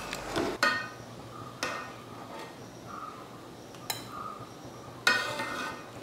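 Metal utensils clinking against an aluminium pan of simmering syrup: four sharp clinks, each with a short metallic ring, about half a second, a second and a half, four seconds and five seconds in.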